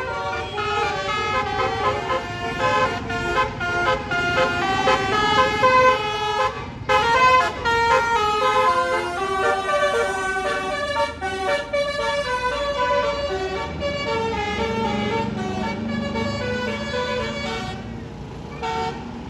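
Bus basuri (multi-trumpet musical air horn) playing a fast tune, with notes stepping from pitch to pitch every fraction of a second, over the rumble of passing traffic. The tune stops about 18 seconds in.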